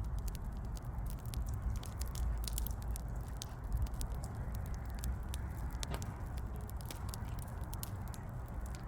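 Burning wood fire crackling: frequent irregular sharp pops and snaps over a steady low rumble.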